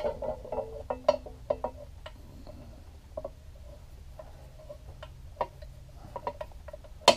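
T-handle driver turning out the screw of a Felder S308 power feeder's gear cover: scattered light clicks and ticks of the tool in the screw and against the cover, with a sharp click near the end.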